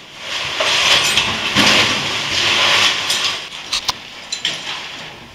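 Cavers' oversuits and gear rustling and scraping against cave rock while climbing, swelling and dipping for a few seconds, followed by a few sharp knocks near the end.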